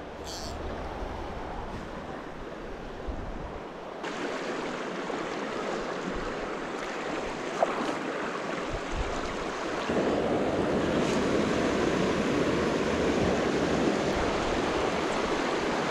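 Shallow, rocky stream running over stones: a steady wash of water noise. It shifts in tone around four seconds in and gets louder around ten seconds in.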